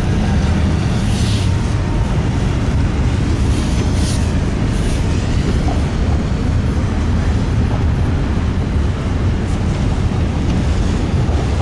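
Double-stack container freight train rolling past, a steady low rumble.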